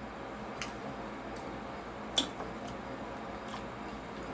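People chewing food at close range: a few short mouth clicks and smacks, the sharpest about two seconds in, over faint steady room noise.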